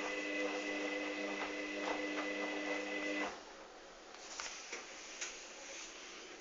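Hoover Dynamic washing machine's drum motor whining steadily as it tumbles a load of towels, with soft knocks from the load, then stopping abruptly a little over three seconds in. A few faint clicks follow.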